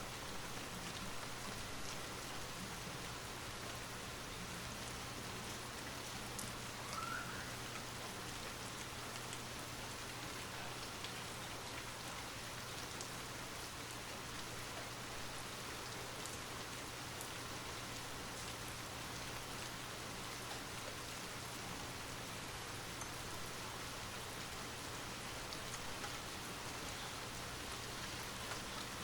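Light rain falling steadily, with scattered individual drops ticking, over a low steady hum.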